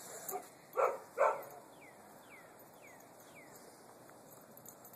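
Puppy giving two short barks in quick succession about a second in.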